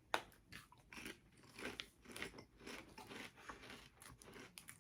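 A person biting into and chewing a Herr's barbecue potato chip: a crisp crunch right at the start, then a run of smaller irregular crunches as it is chewed.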